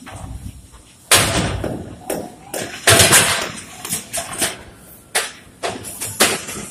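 Irregular knocks, bangs and clatter of workers handling a crane-hung work cage, starting about a second in, several sharp strikes with a short ring after them.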